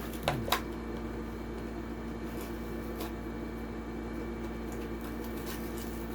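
Steady mechanical hum with a few short plastic clicks, two near the start and one about halfway, as a toy car is worked out of its plastic blister pack.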